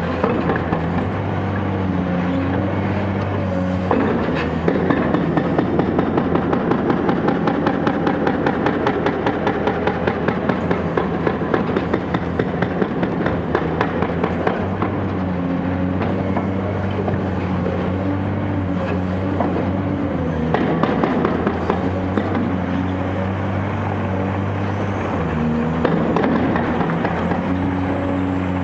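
Caterpillar 385C excavator's diesel engine running steadily under load, with a rapid, regular knocking for several seconds in the first half as the machine works on a concrete foundation.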